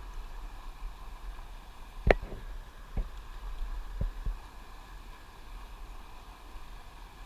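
Steady rush of fast-moving river water, with one sharp knock about two seconds in and three fainter knocks over the next two seconds.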